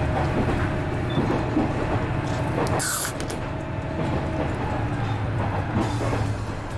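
Steady running rumble of a diesel railcar, heard inside the carriage. About three seconds in, a short sharp hiss as a beer can's ring-pull is opened.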